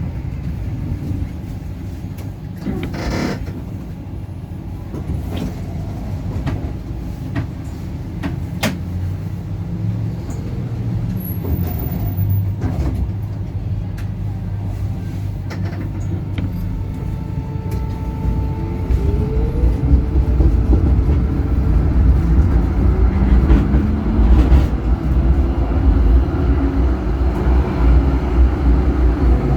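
Electric tram running, heard from the driver's cab. At the start a motor whine falls as it slows, with low rumble and a few sharp clicks. Past the middle a whine rises as it picks up speed, and the rumble grows louder.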